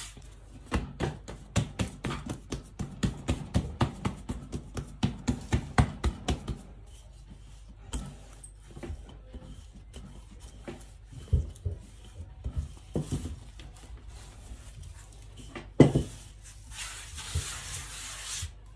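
Pizza dough being worked on a floured silicone pastry mat: a fast run of soft thumps for the first several seconds, then scattered knocks as a wooden rolling pin rolls it out. Near the end comes one louder thump, then a hand rubbing flour across the mat.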